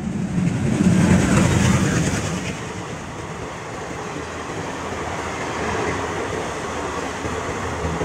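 Passenger train coaches passing at speed, wheels running on the rails, loudest in the first couple of seconds.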